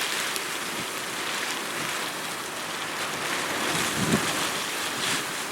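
Steady hiss of rain and wind on a car in a storm, with a brief pitched sound like a voice about four seconds in.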